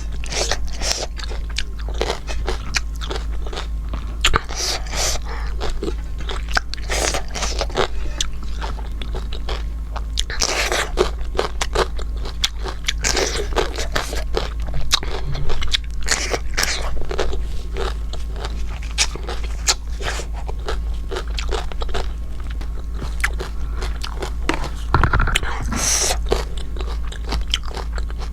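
A person eating close to the microphone: irregular crunching bites and chewing, with many sharp little clicks throughout.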